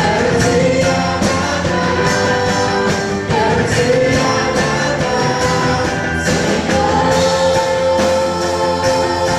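Live Portuguese-language worship song: a woman's lead vocal with backing singers holding long notes, over electric guitar and a steady drum beat.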